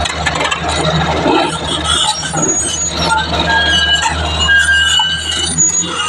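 Komatsu PC200 hydraulic excavator's diesel engine running steadily, with short high-pitched squeaks scattered over it.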